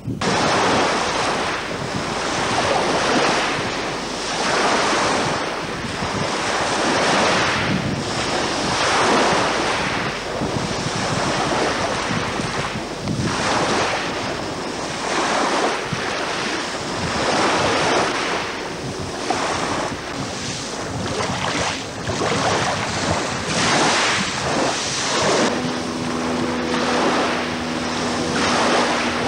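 Small waves breaking and washing on a shingle beach, surging and ebbing about every two seconds, with wind buffeting the microphone. Near the end a fishing boat's engine hum comes in under the surf.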